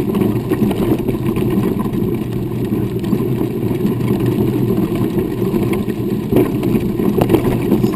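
Vehicle moving along a dusty dirt road: a steady engine drone mixed with the rumble of wheels on gravel and dirt.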